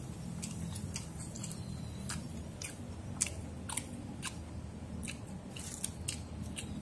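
A person chewing a mouthful of food close to the microphone, with irregular sharp wet mouth clicks, over a steady low background rumble.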